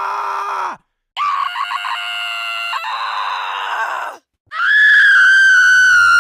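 A run of short, loud, high-pitched cries cut one after another with brief silences between; the last and loudest is a scream held steady for about two seconds before cutting off.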